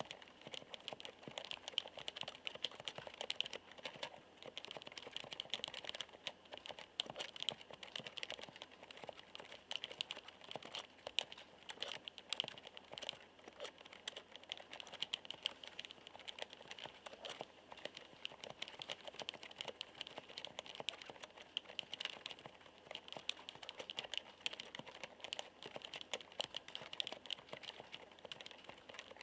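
Continuous fast typing on a μTRON keyboard with Topre electrostatic capacitive (contactless) key switches: a dense, irregular stream of soft "koto-koto" key clacks.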